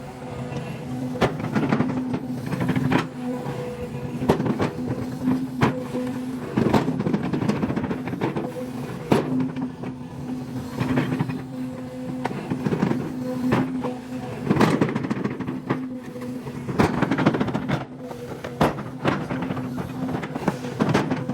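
Long-reach excavator at work: its diesel engine and hydraulics keep up a steady hum that drops out now and then, with many irregular knocks and clanks of metal throughout.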